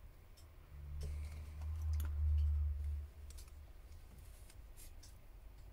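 Small clicks and scrapes of a knife blade and a plastic opening pick working into the seam of a smartphone's glued back cover. A low rumble, the loudest sound, starts about a second in and stops about two seconds later.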